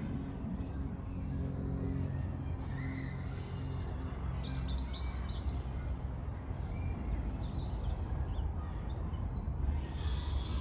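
Steady low rumble of road traffic with a droning engine tone, while small birds chirp and twitter in short high calls through the middle. Near the end a rushing hiss swells up.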